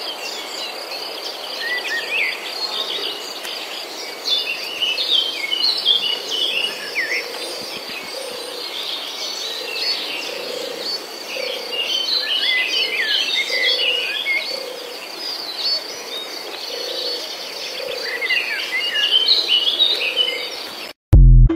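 Sparrows chirping in quick, scattered runs over a steady high insect buzz. A brief loud burst near the end cuts it off.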